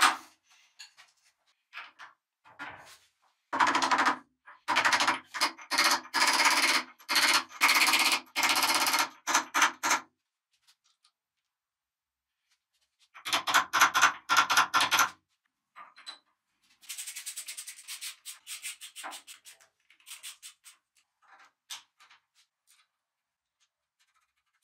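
Quick back-and-forth abrasive rubbing strokes, as in hand-sanding or filing a lathe part. They come in several separate runs with sudden silent gaps. The longest and loudest run is in the first half, and a fainter, higher-pitched run comes near the two-thirds mark.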